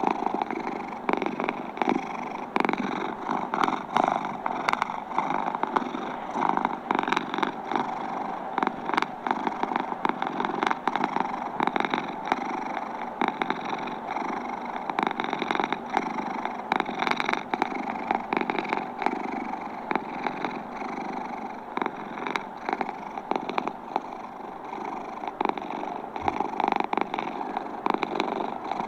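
Domestic cat purring steadily, recorded close up, with a crackly texture of many small irregular clicks.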